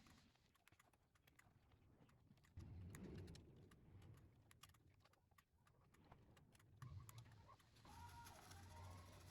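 Faint, scattered small clicks and taps over a low hum that comes and goes.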